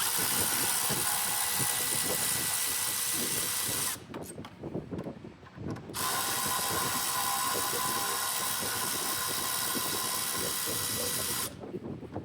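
Power tool driving a 14 mm socket, running steadily in two spells of about four and five seconds with a short break between, backing out the two front brake caliper mounting bolts.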